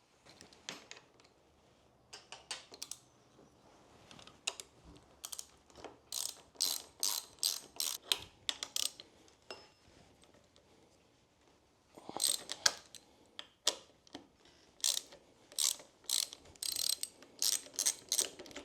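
Hand ratchet wrench clicking in runs of quick strokes as bolts are undone. It comes in two bouts with a pause about ten seconds in.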